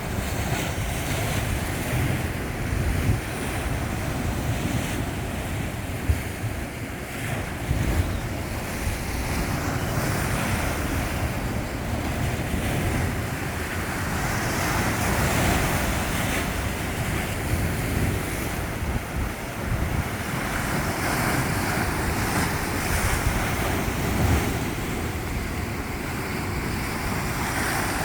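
Sea waves washing onto the shore in swells, with wind buffeting the microphone as a low rumble.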